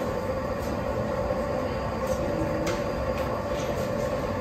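Berlin U-Bahn HK train standing at an underground platform with its doors open: a steady hum with a constant tone under the station's noise, crossed by scattered clicks from passengers' footsteps.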